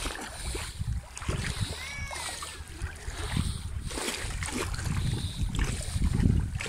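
Shallow water sloshing and splashing around legs as people wade through it, with wind rumbling on the microphone that grows stronger near the end. A faint, brief high call sounds about two seconds in.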